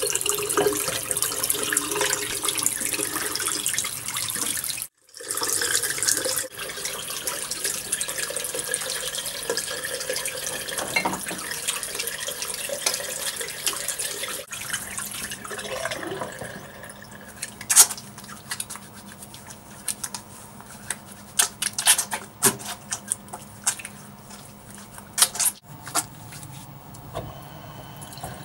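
Tap water running steadily into a ceramic bathroom basin, cutting out briefly about five seconds in. In the second half the flow is quieter and broken by many sharp wet splashes and clicks as hands are rubbed and washed.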